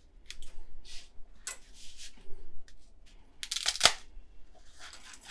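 Dry spaghetti being snapped in half: a run of short brittle cracks, with a louder crunch a little after halfway and a longer rustle near the end.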